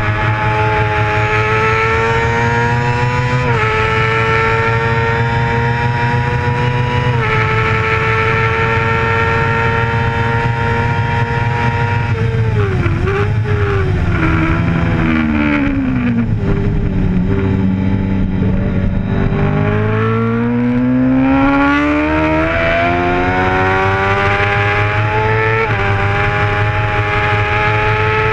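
Racing sport bike engine heard from its own onboard camera, with wind rush over the microphone. It holds high revs with brief dips as it shifts up, falls in pitch through blipped downshifts under braking at about twelve seconds, runs low through the corner, then climbs steadily in pitch as the rider accelerates out and shifts up again near the end.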